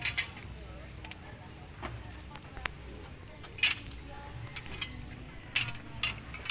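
Irregular light clicks and knocks of the white tubes of a clothes-rack frame being fitted together by hand, over a steady low hum.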